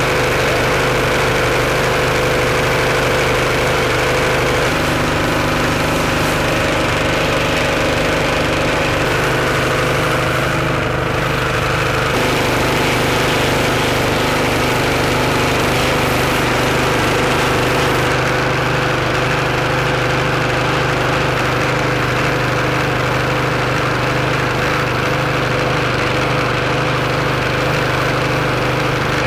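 Pressure washer running steadily, its motor hum under the hiss of the high-pressure spray blasting mud off an old Honda Fourtrax 250 four-wheeler. The tone shifts slightly a few times.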